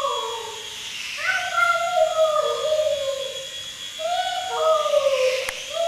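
A dog howling: long drawn-out howls that slide slowly down in pitch, the end of one at the start and then two more, about a second and about four seconds in.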